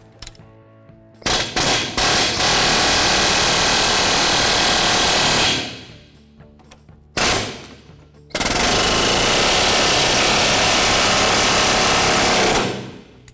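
Pneumatic air chisel with a flat steel bit hammering rapidly on the end of a rust-seized rear shock mounting bolt, driving it out of the shock bushing it has rusted to. There are a few short bursts about a second in, then a run of about three seconds, a brief blip, and a second run of about four seconds.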